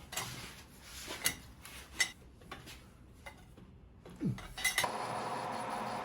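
Metal parts clinking and knocking against each other in a few sharp, separate strikes. Near the end a steady machine hum starts up.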